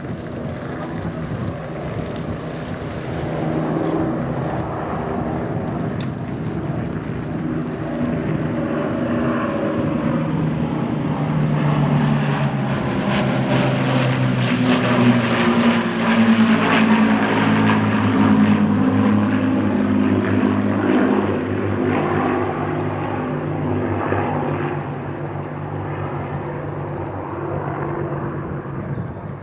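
Avro Lancaster bomber's four Rolls-Royce Merlin V12 engines running as it flies over. The engine note builds to a peak around the middle, drops in pitch as the aircraft passes, then fades away.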